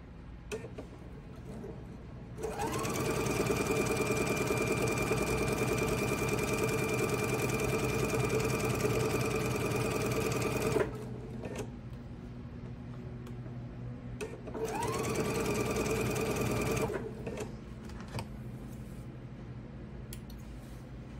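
Electric sewing machine stitching a seam through fabric squares in two runs. The motor whirs up to speed and runs steadily for about eight seconds before stopping abruptly, then runs again for about two seconds. A few light clicks come between and after the runs.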